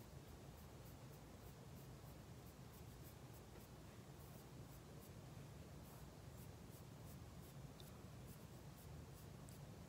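Faint, irregular soft scratching strokes of an eyebrow brush working powder into the brows, over a low steady hum.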